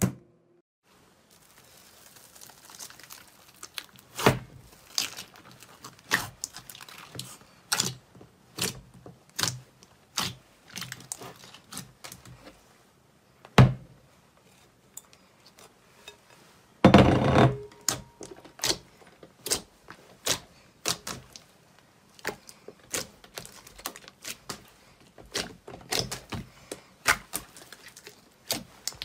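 A large glossy green slime being pressed and squeezed by hand, giving irregular sticky clicks and pops. There is one louder snap about halfway through and a denser second of crackling a few seconds later.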